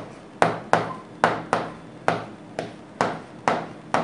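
Pen tapping and clicking on the hard glass of an interactive whiteboard screen while handwriting, about nine sharp taps at an uneven pace of roughly two a second.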